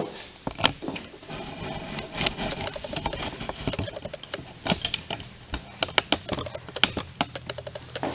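Irregular clicks and knocks of hand tools being worked on the engine, some quick runs of clicks and a few louder knocks.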